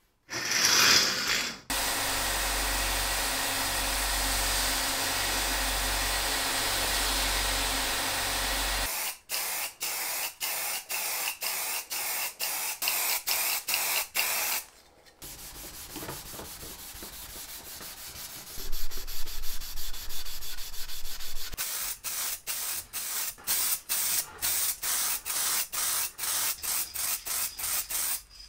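Aerosol spray paint cans spraying in quick short bursts, two or three a second, with a few longer sprays between. Before that, a steady hiss with a low hum runs for about seven seconds.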